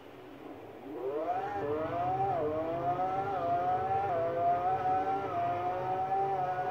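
Twin-turbo Lamborghini Aventador's V12 engine heard from inside the cabin under hard acceleration. About a second in, a high engine note starts rising, dips briefly with each of about five quick upshifts, then holds almost steady near 7,000 rpm at high speed.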